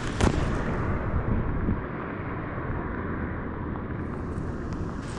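Wind buffeting the microphone over steady rain, with a sharp knock and a few louder bumps in the first two seconds from handling while a pike is being unhooked.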